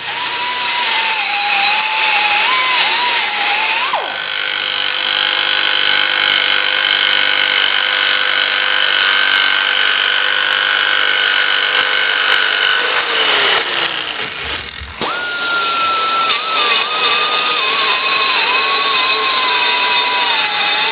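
Handheld electric power tool cutting into a steel plate, its motor whine wavering as it loads up and eases off. A little past halfway it winds down with a falling pitch, then starts again about a second later.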